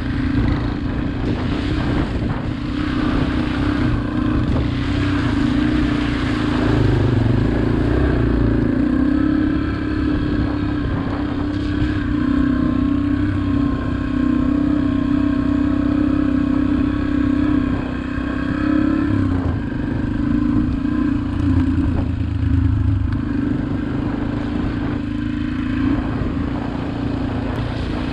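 Dirt bike engine running steadily as the bike rides along a dirt trail, its pitch rising and falling a little with the throttle, over a low rumble.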